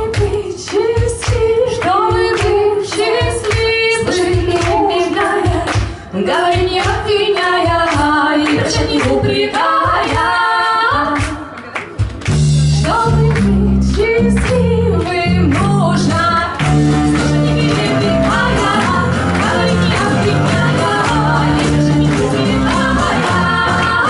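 Women's voices singing a folk song together over regular hand-drum beats. About halfway through, acoustic guitar and fuller low accompaniment join under the singing.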